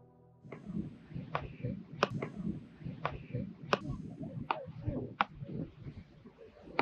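Beach tennis paddles striking the ball in a quick volleying rally, a sharp pock about every 0.7 s, with a fluctuating low beach background.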